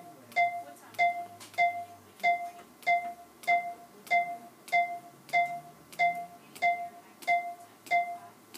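PulStar computerised chiropractic instrument tapping its way along the spine during a rescan that measures the result of the adjustment. Each tap is a sharp click with a short ringing tone, evenly spaced at about three every two seconds.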